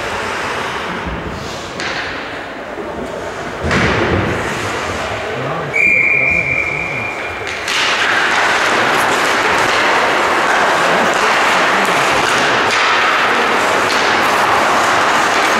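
Ice hockey play: a thud of stick or puck against the boards, then a single referee's whistle held for about a second and a half, followed by a steady rush of rink noise.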